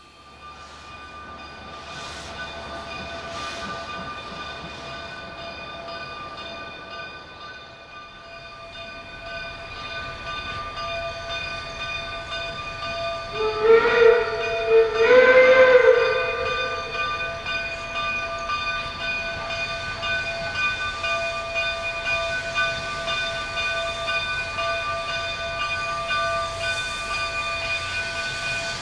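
Steam locomotive K-27 No. 463 blowing its chime whistle in two blasts about 14 seconds in. Afterwards comes a faint, even chuffing beat as the engine works. A steady high whine runs underneath throughout.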